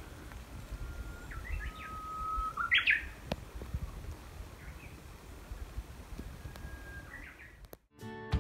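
Japanese bush warbler (uguisu) singing its 'hoo-hokekyo' song twice: a long steady whistle that breaks into a quick warbled flourish. Acoustic guitar music cuts in at the very end.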